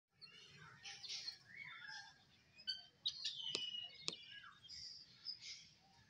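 A flock of helmeted guinea fowl calling: many short, overlapping chirps and whistled notes, some sliding down in pitch, with two sharp clicks a little after the middle.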